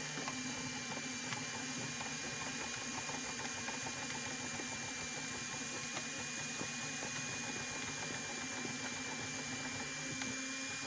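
M3D 3D printer running a print: its stepper motors hum steadily with a thin high whine, with scattered light ticks.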